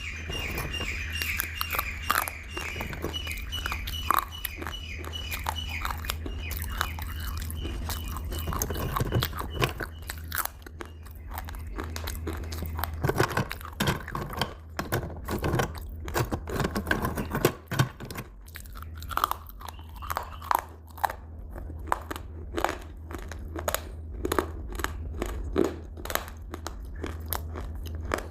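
Close-miked chewing and crunching of crisp food, with many short sharp crunches, the loudest ones coming in the second half. A steady low hum runs underneath.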